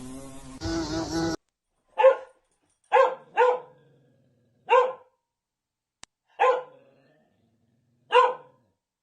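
A dog barking six single, short barks at uneven intervals, starting about two seconds in. Before the barks, a buzzing sound cuts off abruptly.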